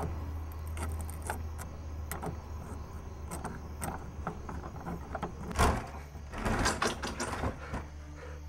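A door and its knob being worked: scattered clicks and knocks, a loud thump about five and a half seconds in and a run of knocks just after, over a steady low hum.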